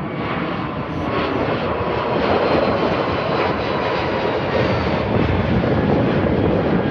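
A departing jet airliner's engines running loud and steady, swelling slightly about two seconds in, with a faint whine over the noise.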